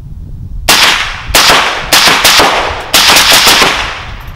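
Suppressed 7.62x39 AR-15 rifle firing a rapid string of about ten shots, starting under a second in, some in quick runs. The rifle cycles shot after shot with no stoppage and no gas changes.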